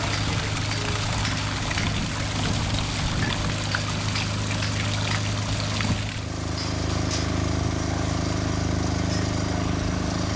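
Water pouring and splashing over a steady low engine hum. About six seconds in, the splashing stops and the engine keeps running with a slight regular pulse.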